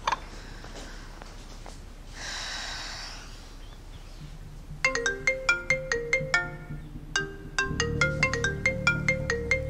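Mobile phone ringtone: a bright, marimba-like melody of quick repeating notes starting about five seconds in, with a low bass joining near eight seconds. Before it there is a faint click and a short rush of noise about two seconds in.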